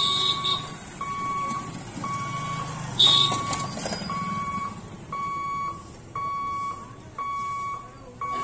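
Railway level-crossing warning beeper sounding while the gate barrier comes down: one steady electronic beep about once a second, each about half a second long. Under it motorcycle engines pass, and a short sharp sound about three seconds in is the loudest moment.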